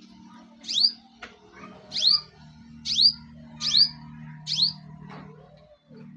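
A bird calling: a sharp, high chirp that sweeps downward, repeated five times at roughly one-second intervals.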